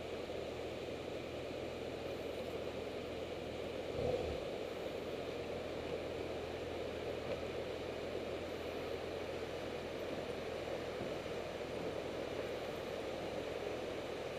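Steady rush of a fast river with a BMW F800's parallel-twin engine running at low revs underneath; a brief thump about four seconds in.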